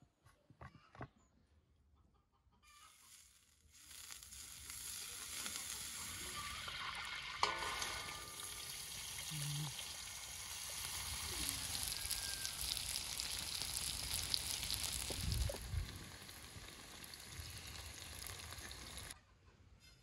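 Hot oil sizzling and bubbling in a wide steel wok over a fire, with a rooster crowing in the background. The sizzle starts about three seconds in and cuts off suddenly near the end.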